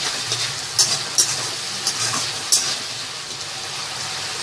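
Tomato gravy sizzling steadily in a pan while it is stirred, with a few sharp clicks of the spoon against the pan in the first three seconds.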